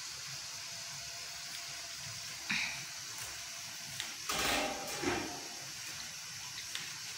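A steady hiss from the stove-top cooking, with short clatters about two and a half and four and a half seconds in.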